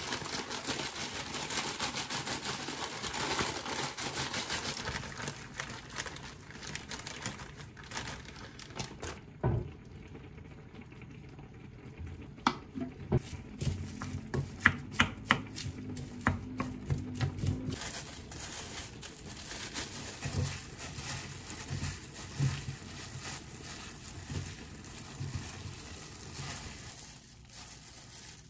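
A crinkling foil-lined snack bag as crumbled seasoned laver is shaken out of it into a glass bowl of rice. Then a wooden spoon stirs and scrapes the rice, tapping sharply against the glass bowl several times in the middle of the stretch, with softer knocks later.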